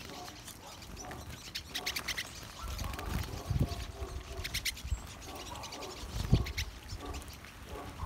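Flock of pine siskins twittering, with rapid runs of short high call notes in two bouts, about two seconds and five seconds in. A couple of low bumps fall in between.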